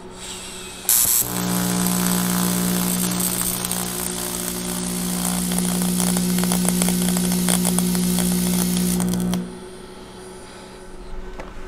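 AC TIG welding arc on a cracked cast aluminium Harley primary clutch housing, run from an AC buzz box with a high-frequency start box. The arc strikes with a sharp crackle about a second in, buzzes steadily for about eight seconds, and cuts off suddenly.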